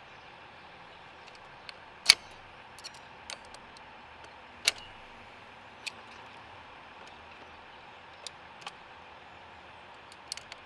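Scattered clicks and clinks of locking pliers being clamped on, worked and adjusted on a car battery's terminal nut, which spins and is rounding off. Two sharper clicks come about two seconds and four and a half seconds in, over a steady background hiss.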